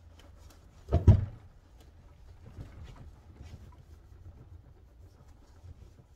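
Microfiber cloth wiping dried liquid polish off a metal engine part, a faint scratchy rubbing with small ticks. A short thump about a second in.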